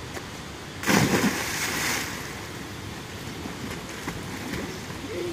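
A child jumping into a river pool: one loud splash about a second in, trailing off over the following second as the water settles and he swims.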